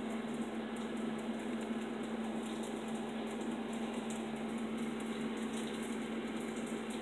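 Steady hum with a constant low drone and an even noise under it, from a running fan or appliance motor.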